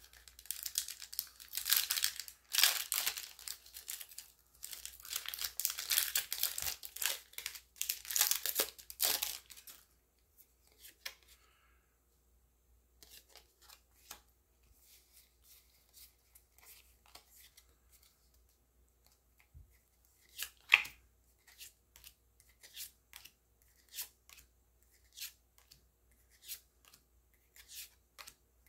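Foil wrapper of a Pokémon booster pack crinkling and tearing open for about the first ten seconds. After that come soft flicks, about one a second, as the trading cards are slid off the stack one at a time, with one louder flick about two-thirds of the way through.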